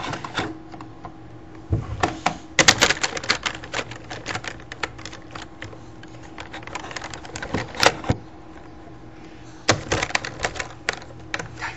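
Computer keyboard keys being banged on by a small child: irregular bursts of rapid clattering clicks with short pauses between.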